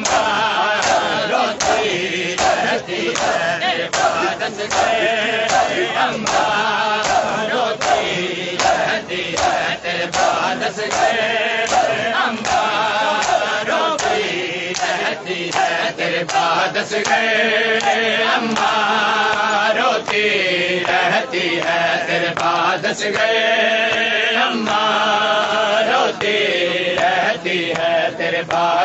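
Men's voices chanting a noha (Shia lament) together, over a steady beat of hands striking bare chests in matam.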